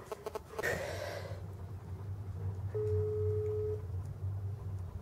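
A single steady electronic beep from a mobile phone, lasting about a second about halfway through, over a low steady hum: the phone's tone just after the other side has hung up the call.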